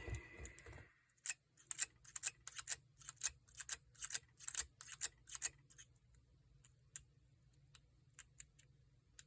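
Metal lock pick and tensioner working the pin stack of a Paclock 90A-PRO padlock: a quick run of small metallic clicks and taps, about three or four a second, thinning to occasional single clicks after about six seconds, as pins are lifted and set. A brief soft handling noise comes first.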